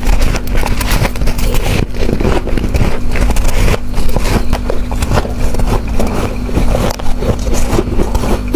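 Close-miked crunching of freezer frost being bitten and chewed, many crisp irregular crunches in quick succession over a steady low hum.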